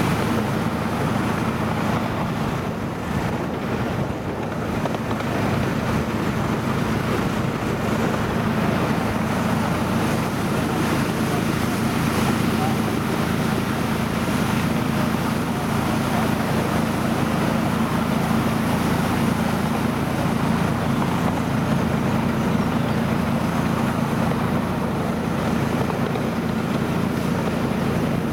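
Miniature railway diesel locomotive's engine droning steadily as it hauls the train, heard from a riding passenger car, with the running noise of the train and wind on the microphone.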